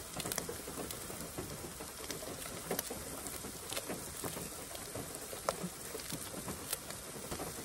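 Steady patter of rain on a car roof, with scattered snips of kitchen scissors cutting up a jalapeño.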